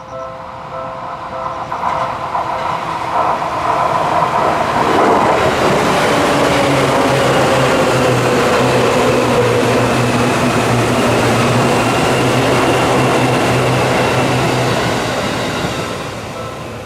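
Seibu electric commuter train passing over a level crossing: the rush of wheels and motors builds over a few seconds, stays loud, then fades near the end. The crossing bell's repeating ding is heard at the start and again as the train clears, drowned out while the train goes by.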